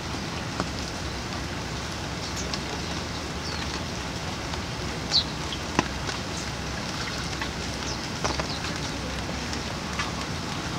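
Rain falling on lotus leaves: a steady hiss with a few sharp drop impacts scattered through it.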